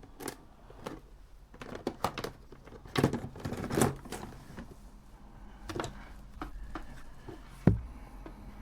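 Scattered light clicks and taps of small plastic objects being handled on a tabletop, with one sharper knock near the end.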